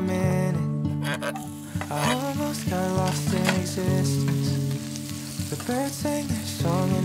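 Sliced pork belly and red onion sizzling in a small frying pan as a wooden spatula stirs them, with background music over it.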